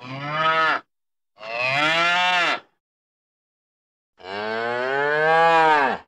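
Cattle mooing: three separate moos, a short one, a second about a second and a half in, and a longer one from about four seconds in, the last two dropping in pitch as they end.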